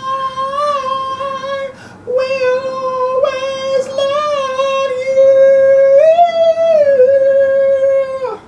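A man's high falsetto voice holding long, steady sung notes with small wavering bumps in pitch, breaking off briefly about two seconds in and stopping just before the end: vocal warm-up exercises.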